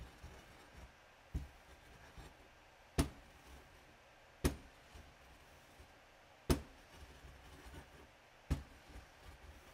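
White muller rubbed in circles over yellow powder on a glass slab: a low gritty rubbing, with five sharp knocks spaced about one and a half to two seconds apart.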